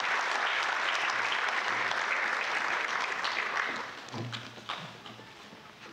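Audience applauding, the clapping dying away a little under four seconds in.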